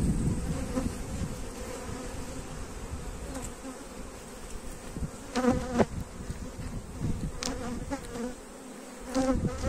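Steady buzzing of a large, open honeybee colony, a dense hum of many bees, growing louder for a moment about five and a half seconds in and again near the end as bees pass close.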